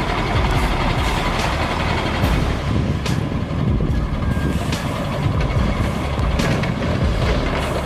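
Heavy truck driving, its engine running under a steady low rumble mixed with road and chassis noise, with a few short knocks along the way.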